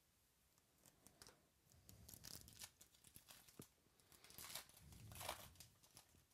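Faint tearing and crinkling of trading-card pack wrappers as packs are ripped open, in a few short bursts with the loudest rustle about five seconds in.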